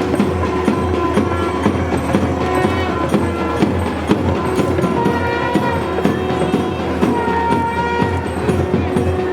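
Music with fast, dense drumming under long held melody notes.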